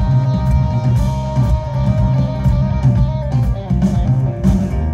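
Live rock band playing without vocals: acoustic and electric guitars over bass and drum kit, with steady drum and cymbal hits, in the closing bars of a song.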